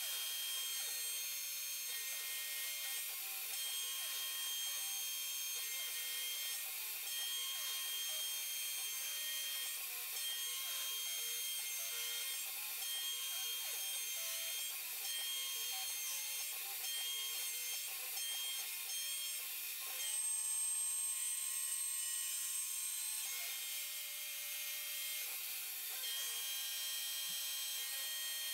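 CNC router milling aluminium plate with an end mill: a steady high spindle whine over a hiss of cutting and mist coolant, with a lower motor hum that wavers as the axes move. A sharper high tone stands out for a few seconds about two-thirds of the way through.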